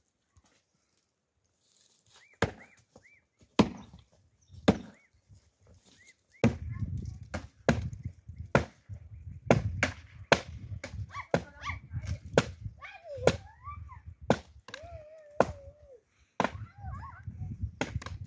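Firewood being chopped: a run of sharp wooden blows, a few spaced out at first, then coming about once a second.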